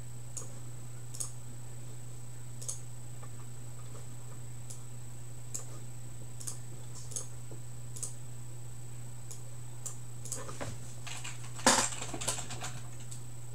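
Scattered light clicks over a steady low electrical hum, with a denser flurry of clicking and rattling and one sharp knock about two seconds before the end.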